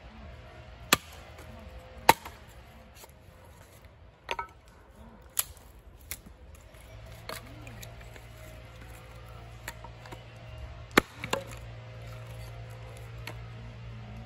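Hatchet splitting firewood into kindling: several sharp chops into wood at irregular intervals, the loudest about one, two and eleven seconds in.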